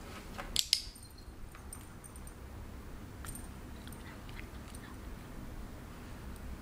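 Two sharp clicks in quick succession about half a second in, then a few faint ticks, over a low steady room hum.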